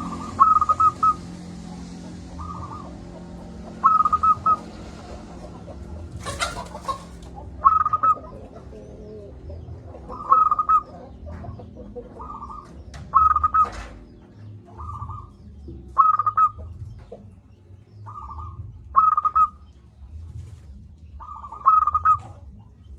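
Zebra dove (perkutut) calling: about a dozen short, clipped coos, repeated every one to three seconds. In the first seconds a passing vehicle fades away, and a single sharp knock comes about six seconds in.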